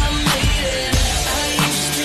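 Hip hop backing track between rapped verses: a steady drum beat over held bass notes, with no vocals.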